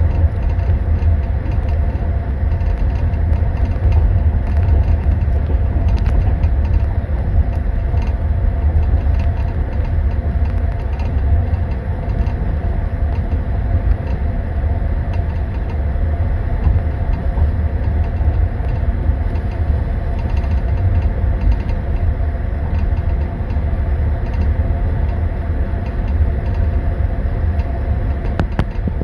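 Steady low rumble of a moving passenger train, heard from inside a sleeper compartment: the carriage's wheels and running gear on the track, with a few faint clicks.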